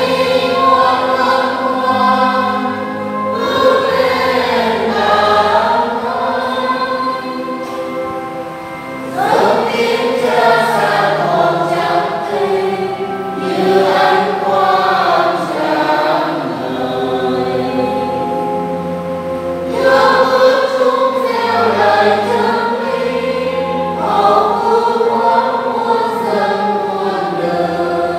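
A church choir singing a hymn in several voices, with held low accompanying notes underneath; the singing goes on in long phrases that rise and fall.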